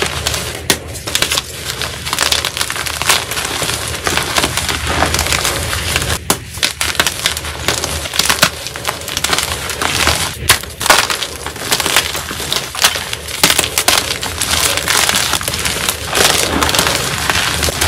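Blue-dyed and plain white gym chalk blocks crushed and squeezed in bare hands: a dense, continuous crunching and crackling of breaking chalk, with louder snaps scattered through.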